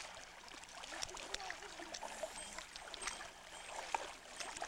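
Shallow water sloshing and splashing around the legs of people wading through it, in many small irregular splashes.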